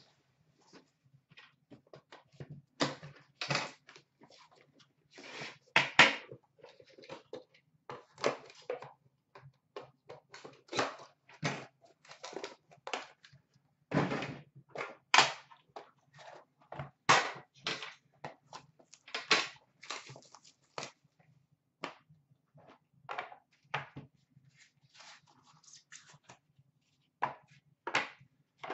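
Irregular knocks, scrapes and rustles of an Upper Deck The Cup hockey card box being unpacked: the cardboard box and the metal tin inside it handled and opened, with plastic wrapping rustling near the end.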